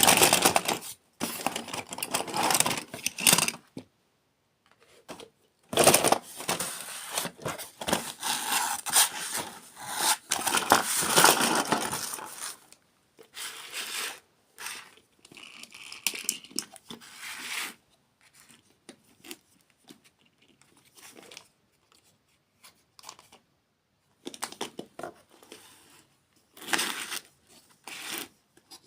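Packaging being torn open and crinkled in irregular bursts, with quieter rustling in between.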